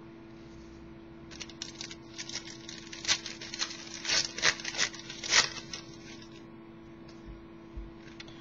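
A trading-card pack wrapper crinkling as it is torn open and handled. It makes a run of sharp crackles for about four seconds, starting about a second in.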